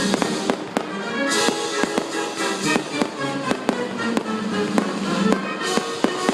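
Music with held notes plays while aerial fireworks go off: repeated sharp bangs and pops, with a spell of hissing crackle about a second and a half in and again near the end.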